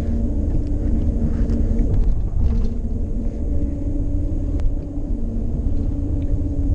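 Steady road rumble and drivetrain hum of a moving vehicle, heard inside its cabin.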